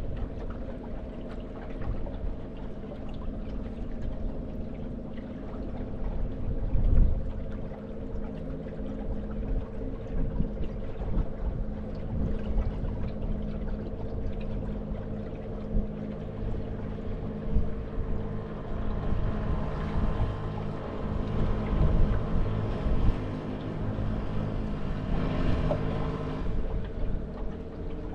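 Canal boat's motor running at a steady hum while the boat cruises, with a rushing hiss growing stronger from about twenty seconds in.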